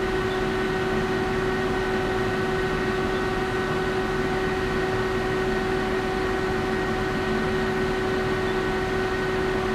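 Steady hum of a powered-up Citizen M16 CNC Swiss-type lathe standing idle, a constant drone holding a few fixed tones over a even hiss with no change in level.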